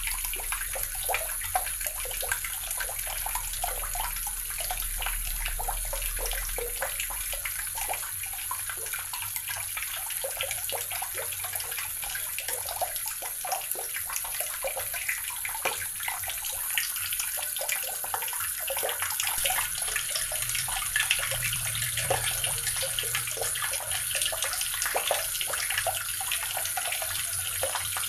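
Water running steadily from a tap and splashing into a basin or tub below.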